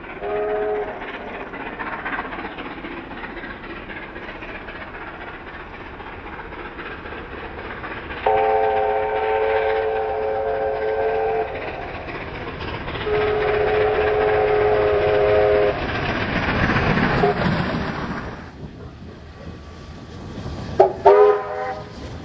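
Standard NSWGR five-chime steam locomotive whistles sounding over the steady noise of steam locomotives working a train. There is a short toot at the start, then two long blasts of about three seconds each partway through, and two quick toots near the end.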